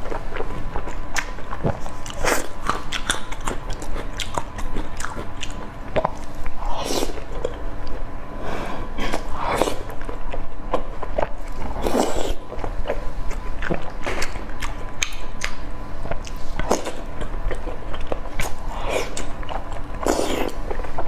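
A person chewing and biting food close to the microphone: irregular wet clicks and smacks, mouth-eating sounds with no talking.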